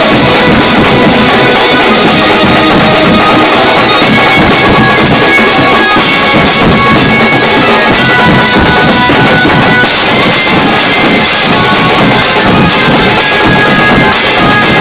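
A live drum band playing very loud: fast, dense beats on a rack of tom-toms and cymbals, with a melody of held notes over the drumming.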